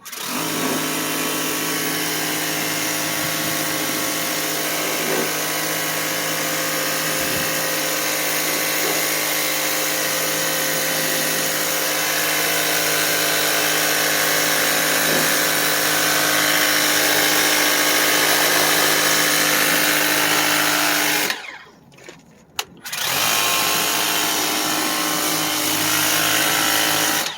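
Kobalt 40-volt cordless handheld power cleaner running: its pump motor hums steadily under the hiss of the water spray on a condenser coil. It cuts out about 21 seconds in and starts again a second and a half later.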